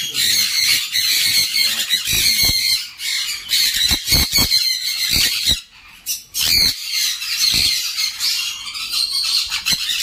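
Caged sun conures screeching almost without pause, harsh high-pitched calls overlapping one another, with a few sharp knocks mixed in between about four and five and a half seconds.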